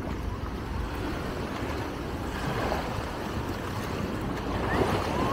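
Shallow sea water washing and lapping around a wader, with wind rumbling on the microphone.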